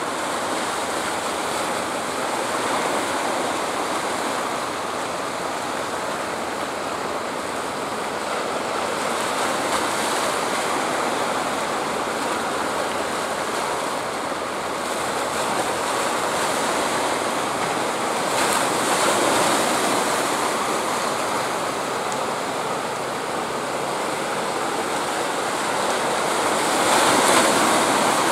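Sea surf washing against coastal rocks: a steady rush of breaking water that swells louder now and then, most of all near the end.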